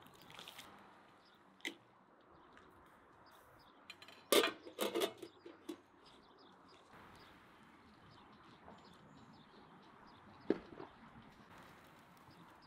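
Metal cookware clinking and knocking: a few scattered knocks, with the loudest a quick cluster of clatters about four to five seconds in as the lid goes onto the aluminium pot. Between them there is only a faint steady background.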